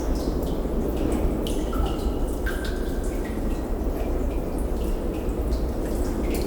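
Water dripping inside a sea cave: many irregular drips plinking, each with a short pitched ring, over a steady low rumble of wind resonating in the cave and a constant wash of water.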